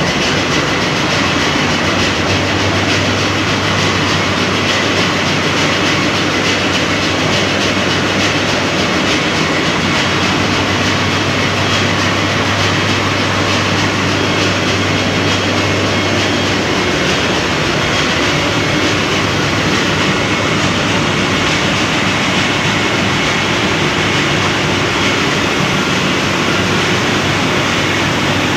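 Ship's engine-room machinery running: a loud, steady mechanical din. A low hum comes in a couple of seconds in and drops away a little past the middle.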